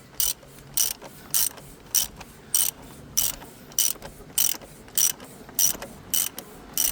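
Ratchet wrench clicking in a steady rhythm, about two clicks a second, as it works the oil filter housing cap.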